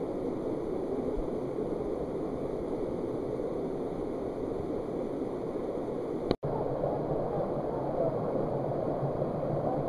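Steady rush of water from a mountain stream and waterfall in a rocky gorge. It cuts out for an instant about six seconds in, then carries on slightly louder.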